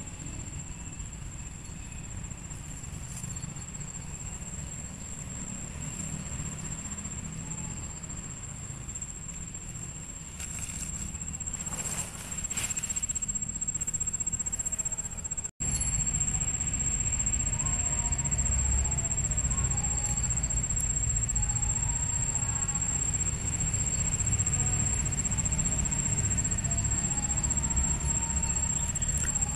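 Steady outdoor ambience: one thin, high-pitched whine held without change over a low rumble. A split-second dropout about halfway cuts it off, and it comes back somewhat louder.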